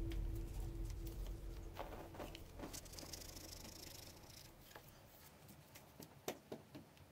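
Dry sand poured from a shoulder-carried load onto a pile, a soft hiss of falling grains lasting about two seconds near the middle, with a few light taps after it. A low rumble fades out over the first couple of seconds.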